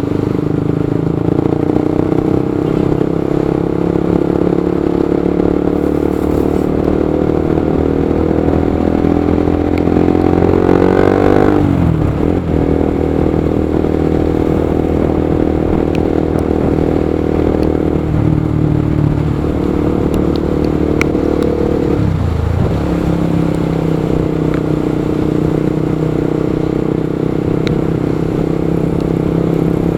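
Motorcycle engine running steadily under way, its pitch climbing for a few seconds and then dropping sharply about twelve seconds in, with two shorter dips later on.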